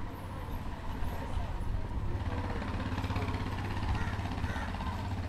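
Street sound dominated by a vehicle engine running steadily with a low hum, amid general street noise.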